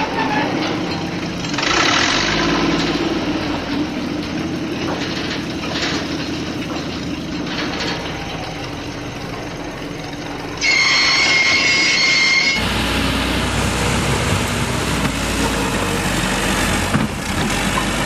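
Steady engine-like noise of construction machinery. A high steady whine takes over for about two seconds near the middle. A deeper rumble begins abruptly about twelve seconds in, consistent with a backhoe loader's diesel engine working.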